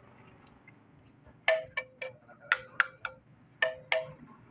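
Metal struck sharply about eight times in two and a half seconds, in uneven groups, each strike ringing briefly with a bell-like tone: a tool tapping on a metal engine part.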